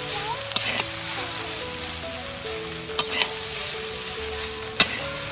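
Chowmein noodles and vegetables sizzling as they are stir-fried in a metal kadai, with a metal spatula clinking against the pan: two quick clinks near the start, two about halfway, and a sharper one near the end.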